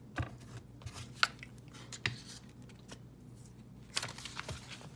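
Paper being handled and pressed down on a tempered glass craft mat, with soft rustling and a few light clicks and taps of tools and supplies set on the glass, the sharpest about a second in.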